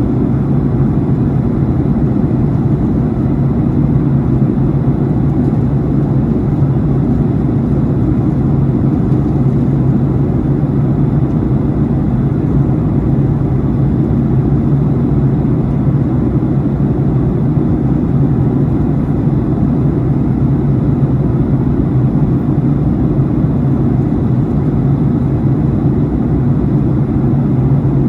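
Steady engine and air noise heard inside an airliner cabin in flight: an even, low drone that holds constant.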